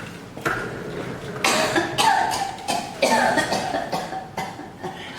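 An elderly woman coughing hard, several coughing fits one after another, some of them voiced and hoarse.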